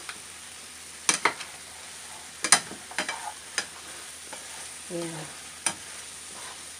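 Chicken sautéing in a frying pan without water, sizzling steadily, while a plastic spatula stirs it, scraping and knocking against the pan about six times.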